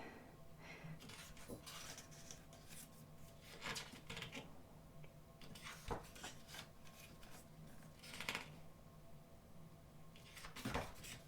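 Thick glossy pages of a large photobook turned by hand: a few soft paper swishes several seconds apart, the clearest about a third of the way in, past the middle and near the end.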